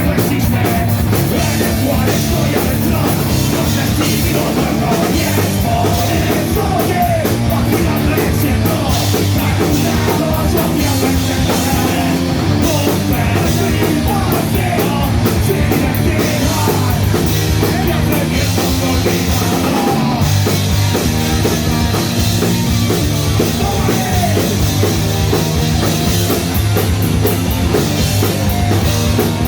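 Punk rock band playing live at a steady loud level: electric guitars, bass and drums driving a fast, even beat.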